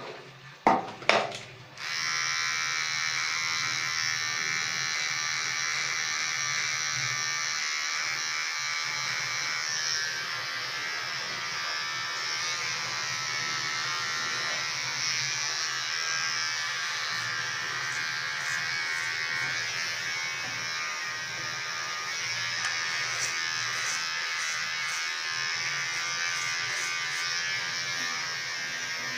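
A few sharp knocks, then an electric hair trimmer switching on about two seconds in and running with a steady buzz while it trims the hair on the side of the head.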